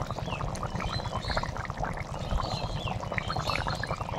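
Chicken curry bubbling at a simmer in an aluminium kadai, a dense run of quick, irregular little pops over a steady low rumble; the curry is at its final boil with garam masala just stirred in.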